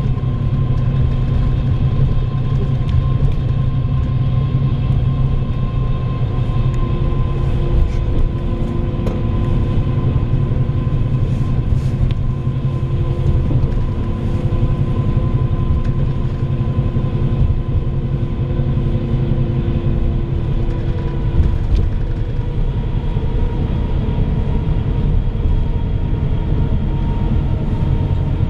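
Steady low rumble of a bus driving, heard from inside the cabin: engine and road noise with a faint steady whine above it.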